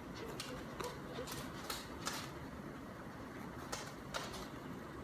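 Steady heavy rain, with a handful of short, sharp drips or splashes scattered through it.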